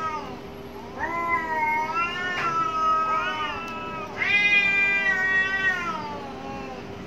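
Two cats yowling at each other in an angry standoff: long, drawn-out caterwauls that waver up and down in pitch, one after another, the loudest starting about four seconds in. It is the threat yowling of cats squaring off before a fight.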